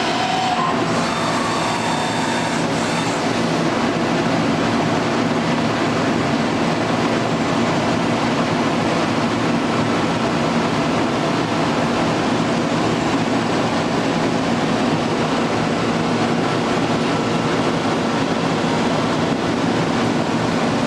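Steady machine-shop noise: an even mechanical rumble and hiss with a faint low hum, unchanging throughout.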